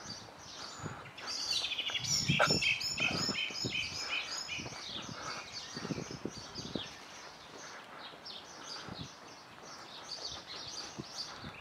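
Small songbirds chirping and singing, with a dense run of rapid repeated notes starting about a second in and lasting a few seconds. Short low taps, like footsteps on cobblestones, sound underneath.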